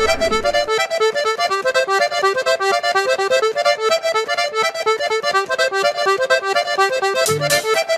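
Background music: a fast, even run of short, bright repeated notes, with low notes and a beat coming in near the end.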